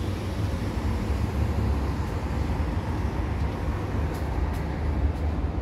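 Steady hum of city road traffic heard from above: an even low rumble with no single vehicle standing out.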